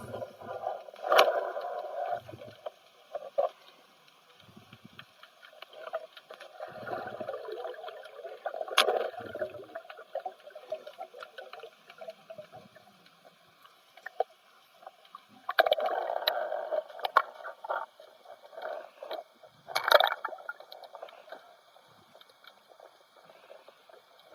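Water sloshing and gurgling around a spearfisher's camera, in irregular swells with a few short low thumps and sharp clicks.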